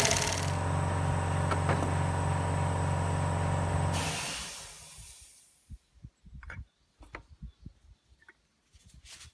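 Engine idling steadily, then fading out about four seconds in, followed by a few faint knocks.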